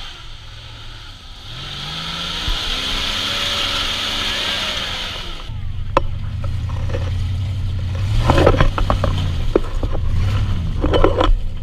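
Off-road 4x4 vehicle's engine revving, its pitch rising and falling over the first few seconds, then running hard under load. A sharp knock comes about six seconds in, and spells of clattering knocks follow near eight seconds and again near the end.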